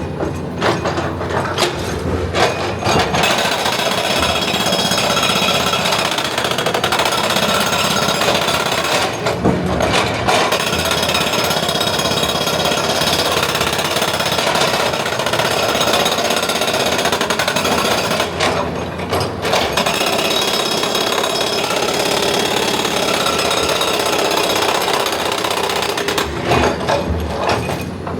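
Excavator-mounted hydraulic rock breaker hammering steadily on rock. It pauses briefly twice, about nine and eighteen seconds in, and stops near the end.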